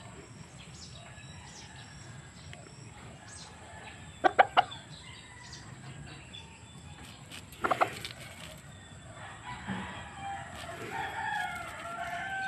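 Gamefowl roosters in their pens calling: three quick, sharp clucks about four seconds in, another single one near eight seconds, then a fainter, longer wavering call near the end.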